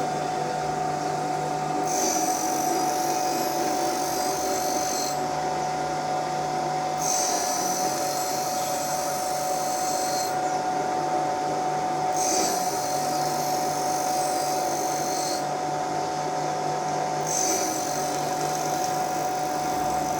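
Motorcycle camshaft copy machine running: a steady high-speed spindle whine, with a higher cutting hiss that comes and goes every two to three seconds as the tool works around the cam profile.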